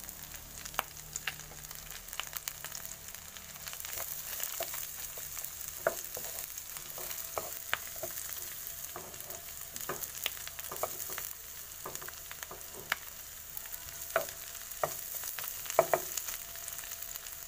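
Chopped garlic and shell-on prawns sizzling in a little oil in a frying pan, with a steady hiss. A wooden spatula stirs them, scraping and tapping the pan now and then.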